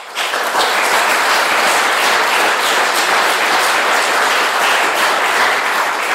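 Audience applauding, starting abruptly and holding at a steady level.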